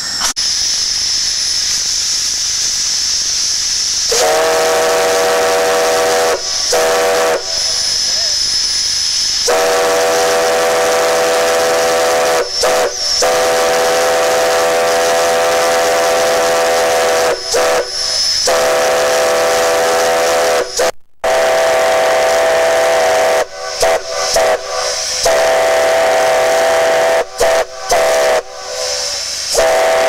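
A multi-note chime steam whistle on a steam traction engine blowing a chord, with steam hissing throughout. After a few seconds of hiss and a thin high whistle, it sounds in several long blasts separated by short breaks, then a run of short toots near the end.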